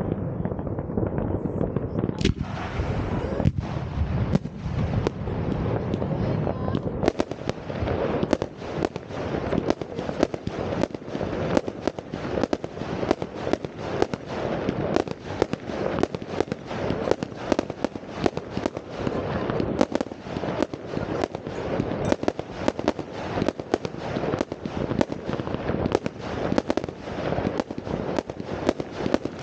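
New Year's Eve fireworks: a dense low rumble of many overlapping bangs with a few sharper reports, turning about seven seconds in into a rapid, continuous crackle of many bangs a second.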